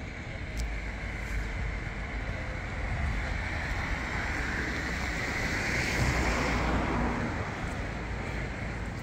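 Street traffic noise, with one vehicle passing: the sound swells about five seconds in and fades again a couple of seconds later.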